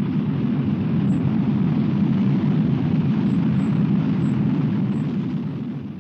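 Low, steady rumbling roar of a Zenit-3SL rocket blowing up on its sea-going launch platform seconds after main engine start, the sign of a failed launch. It fades out near the end.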